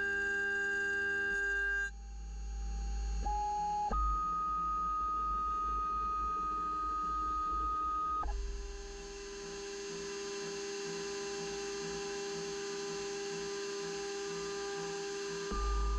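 Milo V1.5 CNC mill cutting along the edge of an aluminium plate with a 6 mm end mill. The machine gives off steady whining tones that jump to a new pitch several times as the moves change, over a low hum.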